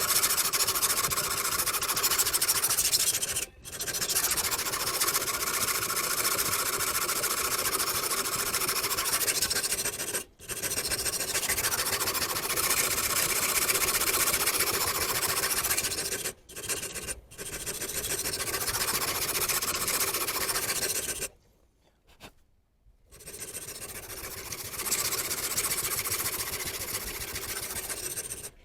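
Steel knife blade being ground on a diamond sharpening stone: a steady metal-on-stone rasp in long runs of several seconds. It breaks off briefly a few times and pauses for about two seconds near the end.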